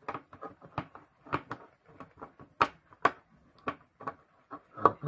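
Japanese can opener being worked around the rim of a tin can: a string of irregular metallic clicks and crunches as the blade bites and levers into the lid, with two louder clicks about two and three seconds in.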